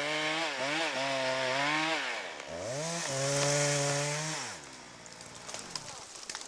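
Chainsaw cutting through a tree trunk, its engine pitch wavering under load. About two and a half seconds in it revs up and holds high, then winds down about four and a half seconds in, followed by faint scattered cracks of wood as the cut tree goes.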